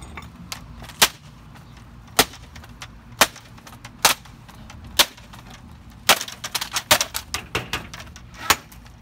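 Hammer blows on a Toshiba laptop, striking the keyboard deck and then the screen. Five single hits come about a second apart, then a quick flurry of hits, then one last hit near the end.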